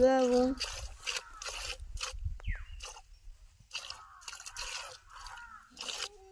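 Cow being milked by hand: jets of milk squirting into a plastic bucket in a quick, uneven run of short spurts, two or three a second.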